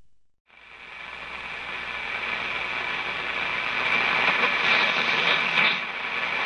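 Static hiss from a Monarch vacuum-tube radio's speaker, coming up out of silence and swelling over a few seconds as the tubes warm up, with some crackle near the end.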